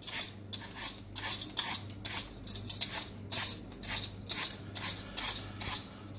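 Vegetable peeler scraping the skin off a Bramley cooking apple in repeated short strokes, about two a second, over a faint steady low hum.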